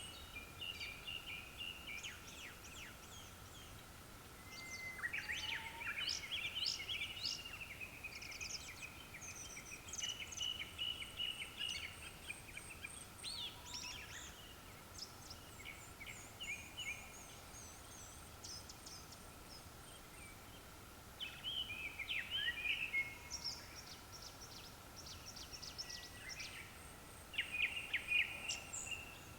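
Japanese thrush song: short bursts of varied, fluty whistled phrases and quick trills, repeated every few seconds. Under it run a faint steady high tone and a faint, fast pulsing.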